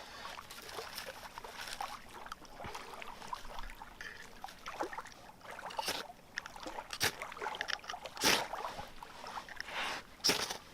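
Knife blade shaving curls off a pine stick to make a feather stick, in several short scraping strokes that come closer together and louder in the second half.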